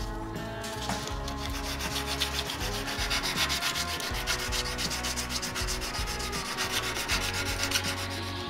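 Hand sanding of a steel wrench: a small abrasive block rubbed quickly back and forth along the wrench, a dense run of even scratching strokes, to clean rust off the steel.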